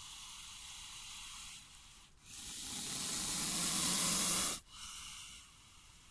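Indian cobra hissing: air forced from its lungs out through its nostrils in three breaths, the loudest lasting about two seconds from about two seconds in. It is a warning hiss meant to announce the cobra and frighten off threats.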